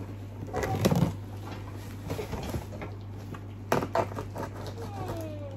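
A cardboard shipping box being cut open with a knife: blade slicing packing tape, with cardboard flaps scraping, rustling and knocking. The loudest burst comes about a second in, and a couple of sharp knocks follow just before four seconds.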